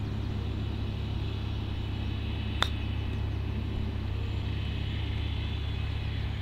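A single sharp click of a 7-iron striking a golf ball on a short chip-and-run shot, about two and a half seconds in. A steady low rumble runs underneath.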